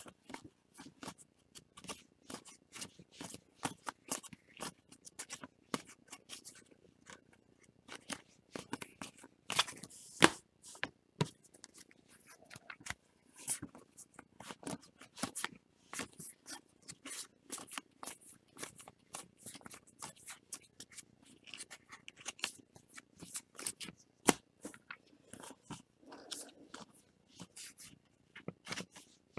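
Topps baseball cards being flipped and shuffled through by hand: a steady patter of small clicks and snaps of card stock, with a few louder snaps around ten seconds in.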